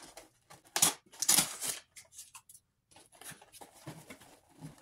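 Cardboard snack box being torn open by hand: a series of short tearing and scraping strokes, the loudest between about one and two seconds in, then a brief pause and smaller rips.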